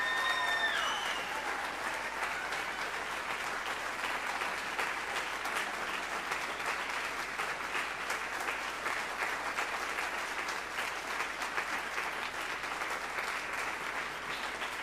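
Audience applauding steadily, a dense patter of many hands clapping, with a few high cheers over it in the first second or so.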